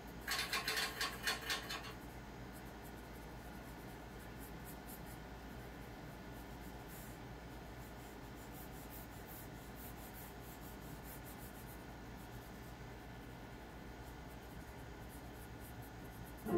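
Pencil scratching on drawing paper as lines are sketched. A quick run of louder strokes comes in the first two seconds, then fainter, scattered strokes follow.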